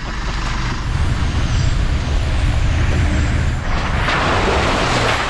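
Four-wheel-drive vehicle driving on a dirt bush track, its engine and tyres making a steady low rumble. About three and a half seconds in, a harsh hissing noise swells up and then cuts off suddenly.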